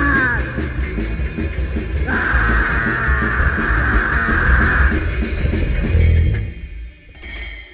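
Punk rock band recording with distorted electric guitars and a drum kit playing held notes. About six seconds in the band stops and the sound dies away, with a last short ringing swell just before the end.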